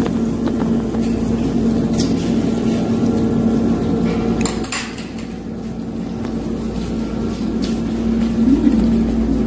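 Metal chopsticks and tableware clinking against dishes at a meal, a few sharp clinks over a steady low hum.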